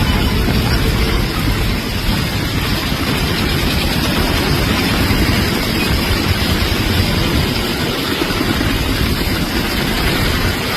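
Heavy rain pouring down: a loud, steady rushing noise with a heavy low rumble under it.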